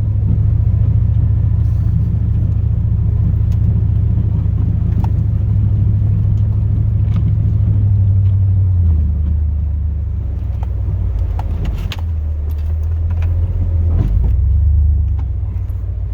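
A 2002 Chevrolet Silverado's 8.1-litre big-block V8 gas engine running under load as the truck pushes snow with its plow, a steady low rumble that eases about nine seconds in, picks up again, and eases near the end. A few faint clicks are heard over it.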